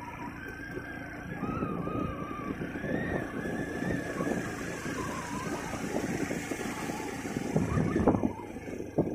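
A motorcycle engine running, its pitch wavering, as the bike comes up the path and gets louder toward the end, with wind rumbling on the microphone.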